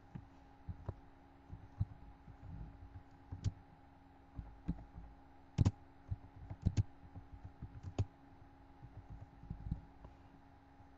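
Computer keyboard being typed on: irregular clicks and soft thuds, a few a second at most, some in quick clusters, over a faint steady hum.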